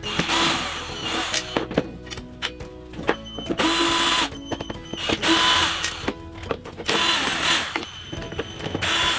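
12V cordless drill-driver whirring in short bursts of about half a second to a second, several times over, as it backs screws out of a circular saw's plastic housing, with small clicks in between.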